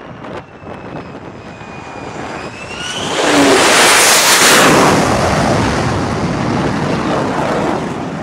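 F-35C's single F135 jet engine on a carrier landing. A thin high whine grows louder over the first three seconds as the jet approaches. It swells into a loud roar as the jet touches down and passes, peaking about three to five seconds in, and keeps roaring at high power until it cuts off suddenly near the end.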